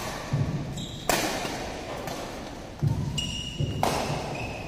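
Badminton rally in an echoing hall: about three sharp racket strikes on the shuttlecock, at the start, a second in and near the end. Between them, players' feet thud on the court and shoes give short squeaks.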